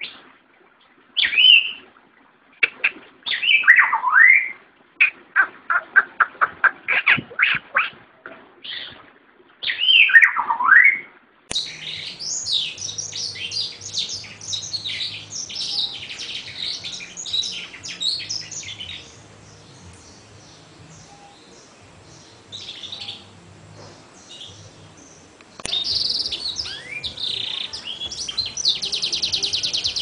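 Caged songbirds singing, in three clips. First come loud whistled notes with long falling slurs and a quick run of short notes. About eleven seconds in it switches suddenly to a continuous high twittering song, and near the end another song finishes in a fast trill.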